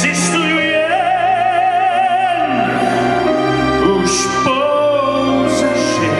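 A man singing a musical-theatre song into a microphone over instrumental accompaniment, holding long notes with strong vibrato: a high note about a second in, and a lower one a little past the middle.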